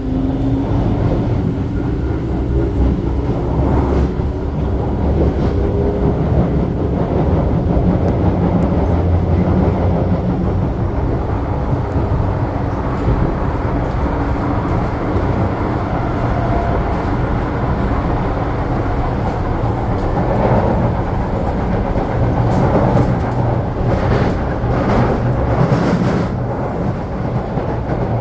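SMRT C751B electric train running between stations, heard from inside the car: a steady rumble of wheels on rail. Faint motor tones rise in pitch at the very start, and a few sharp clicks come near the end.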